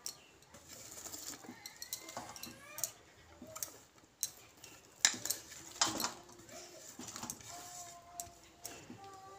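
Sliced raw onions being dropped by hand from a plate into a steel bowl of marinating chicken: soft drops and a few light clicks of onion and plate against the bowl, most of them in the second half.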